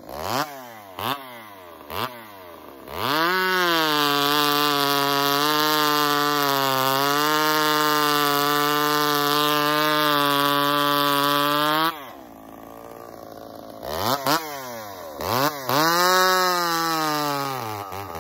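Husqvarna 266 XP two-stroke chainsaw blipped a few times at idle, then held at full throttle for about nine seconds while cutting through a log, its pitch sagging slightly under load. It drops back to idle, is revved a few more times, and settles back toward idle near the end.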